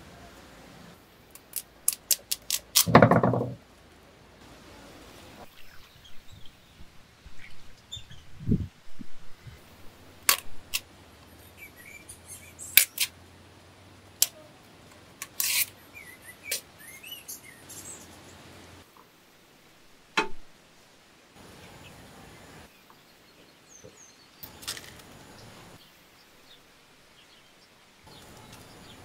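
Hands preparing a curry in a clay cooking pot: scattered clicks, knocks and rustles as drumstick pods, onion, chilli and torn pandan leaves are handled and dropped in, with a louder thud about three seconds in. Birds chirp faintly in the background.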